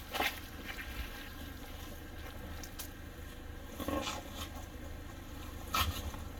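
An off-road vehicle's engine runs with a steady low rumble as the vehicle crawls slowly over a rock ledge. A few short knocks and scrapes break in now and then.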